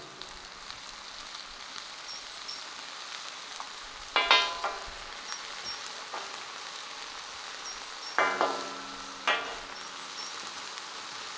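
Vegetables and meat sizzling steadily in a wok during a stir-fry, with three short ringing metal knocks: one about four seconds in and two around eight to nine seconds in.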